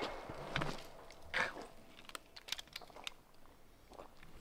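The echo of a pistol shot dies away at the start. Then come a few faint clicks and scuffs as the pistol is handled between shots.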